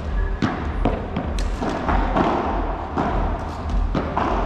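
Padel rally: a run of sharp knocks as the ball is struck by rackets and bounces, about two a second at uneven spacing, over a steady low rumble.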